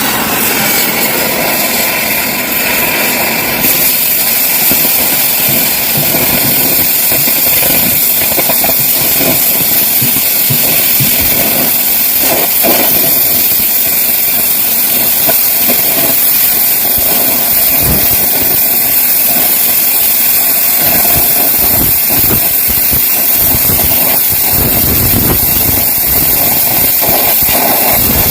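Stick-welding arc from a nickel electrode on ductile cast iron: a loud, steady crackling hiss that goes on without a break.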